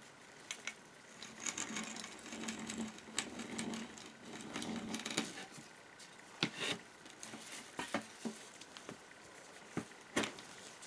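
Vintage Polish PWWE10 two-speed hand drill being cranked to bore a twist bit into a wooden board: a rattling whir of the gears and the cutting bit for about four seconds. Then a few separate sharp knocks and clicks.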